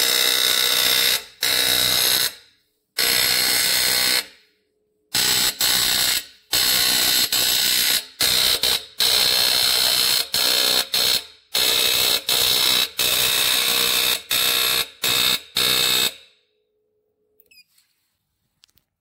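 HeatSign handheld dot-peen marking machine's pin rapidly hammering into a metal plate: a loud buzzing rattle in repeated short bursts with brief pauses between them as it stamps one character after another. The rattle stops a few seconds before the end.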